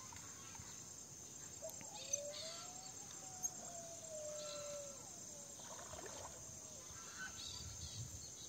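Faint rural outdoor ambience: a steady high insect trill with scattered short bird chirps, and a long, faint wavering tone from about two to five seconds in.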